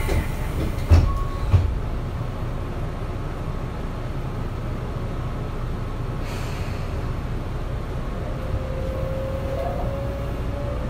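Inside a Tobu 9050 series electric train standing at a station: a steady low rumble, two thuds about a second in and a short hiss of air about six seconds in. Near the end the Toyo GTO-VVVF inverter starts its rising whine as the train pulls away.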